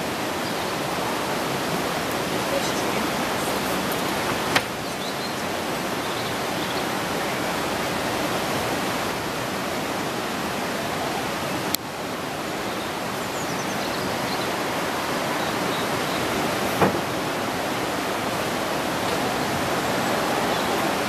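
Steady rushing hiss of water running from a hose into an empty concrete pool, with three brief sharp clicks spread through it.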